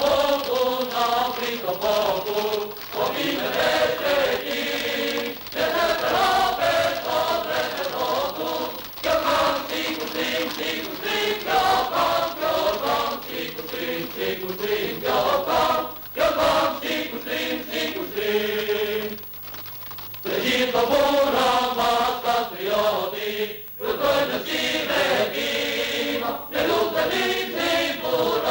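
A choir singing a chant-like song in short phrases, several voices moving together, with brief breaks between the phrases.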